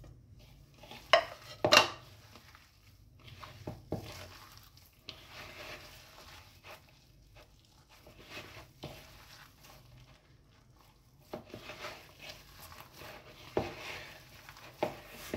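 Hand squishing and kneading mashed boiled potatoes with chopped herbs and onion in a plastic bowl, soft and rustly. Two sharp knocks of crockery come a little after one and two seconds in, and another near the end.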